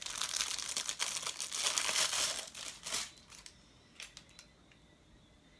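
Packaging being handled and opened, crinkling and rustling for about three seconds, then a few light clicks.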